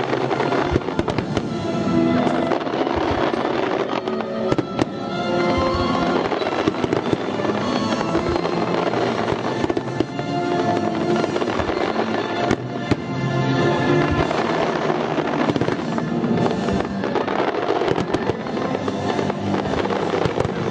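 Fireworks going off, many sharp bangs and crackles scattered throughout, over loud music with a steady run of pitched notes.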